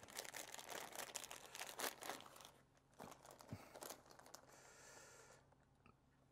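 Faint crinkling and rustling of a clear plastic bag of rubber bands being handled and opened, densest in the first two and a half seconds, followed by a few light clicks and a softer rustle as the bands are set out on the table.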